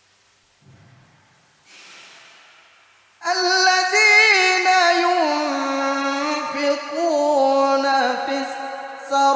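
A man chanting Quranic verses in a high register in melodic tajwid style, with long held notes that waver and bend in pitch. The chant starts about three seconds in.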